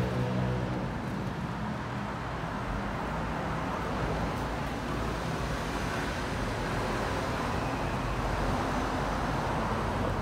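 Steady city street traffic noise, a continuous wash of passing vehicles, with some music fading out in the first second.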